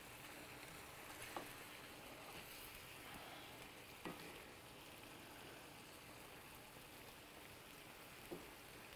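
Faint sizzling and bubbling of a beef stroganoff sauce simmering in a pan, with three soft clicks spread through it.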